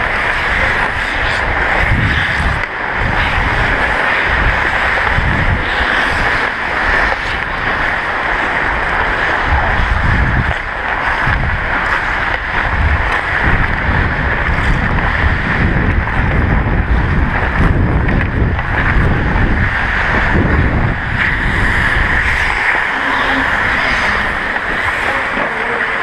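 Wind buffeting a head-mounted action camera's microphone as the wearer skates, a loud, steady rushing with an uneven low rumble, mixed with the hiss of ice skate blades on the ice.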